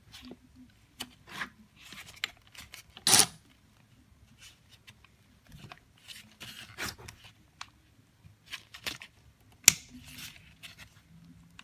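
Handling noise from cordless ratchets being picked up, turned over and set down: scattered rustles and light clicks, with a sharp clack about three seconds in and another near the end.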